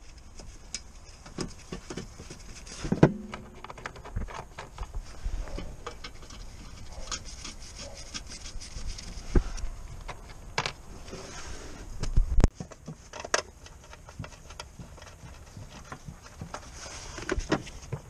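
Metal parts and hand tools being handled under a car bonnet: scattered clinks, knocks and rubbing, with a sharp metallic knock that rings briefly about three seconds in and a heavier thump about twelve seconds in.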